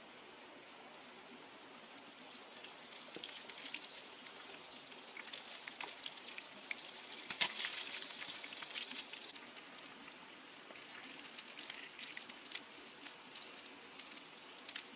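A spider frying in a pan of hot oil, sizzling and crackling. The crackling builds from about two seconds in, is densest about halfway through with one sharp pop, then settles into lighter, steady sizzling.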